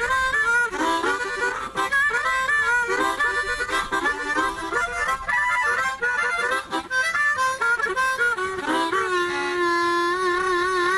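Harmonica played with one hand: a quick run of changing chords and short notes, settling near the end into a long held chord with a wavering warble.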